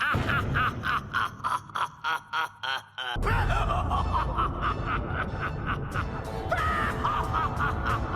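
A male anime character laughing in quick repeated pitched bursts, about three to four a second, over background music that comes in fuller about three seconds in.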